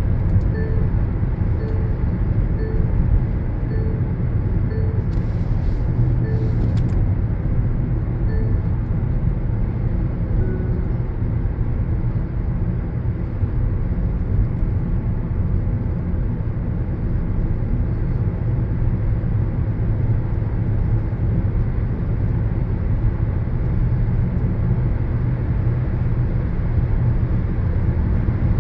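Steady low road rumble of a car driving, heard from inside the cabin: tyre and engine noise. In the first several seconds a short soft tone repeats about every two-thirds of a second, then fades out.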